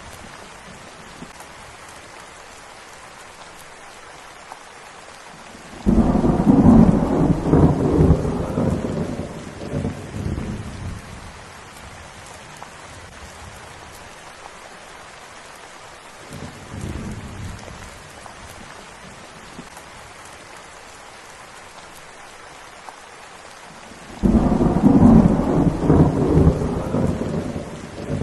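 Steady rain falling, with two loud rolls of thunder that break in suddenly, about six seconds in and again near the end, each rumbling on for several seconds, and a fainter rumble midway.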